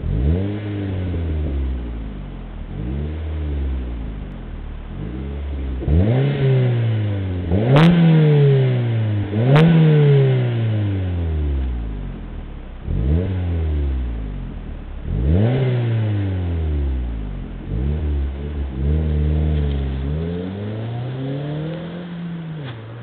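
Suzuki Swift Sport engine with a Milltek cat-back exhaust being revved in a series of quick blips, each note climbing sharply and falling back to idle. Two of the loudest revs, near the middle, end in a sharp crack, and a longer, wavering rev near the end drops back to a steady idle.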